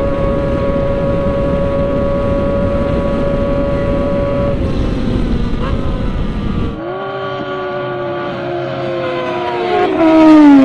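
Kawasaki Ninja ZX-25R's inline-four with a loud aftermarket exhaust held at high revs in sixth gear near top speed, under heavy wind rush; about four and a half seconds in the throttle eases and the steady note drops. Then a sportbike passes at speed, its engine pitch falling as it goes by, loudest near the end.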